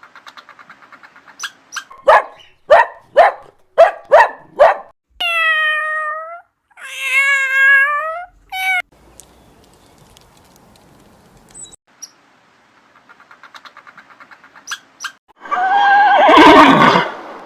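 A squirrel chattering in quick short pulses, then a cat meowing twice from about five seconds in. Near the end comes a loud, harsh call.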